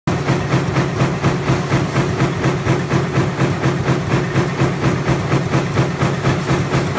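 High-speed lamination stamping line running, with its S-loop strip straightener feeding coil steel. There is a fast, even beat of about five strokes a second over a steady low machine hum.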